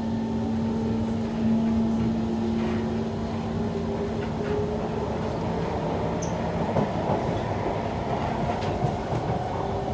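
Kawasaki C151 MRT train in motion, heard from inside the passenger car: a steady rumble of wheels on rail with a motor whine whose tones slowly rise in pitch, and a single knock about 7 seconds in.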